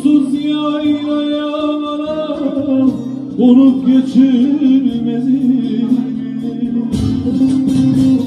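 Man singing a Turkish folk song in two long phrases with held, wavering notes, accompanied by bağlama and acoustic guitar. Near the end the strings break into quick strumming.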